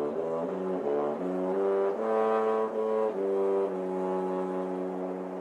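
Short brass-instrument melody of held notes, ending on a long note that fades out near the end.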